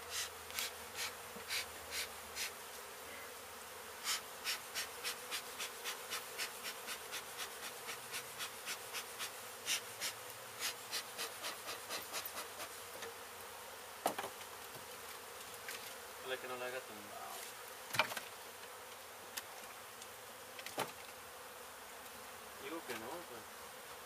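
A mass of honey bees buzzing steadily around an opened hive in a wall cavity. Over the buzzing, a run of quick sharp taps, about two or three a second, fills the first half, followed by a few single knocks.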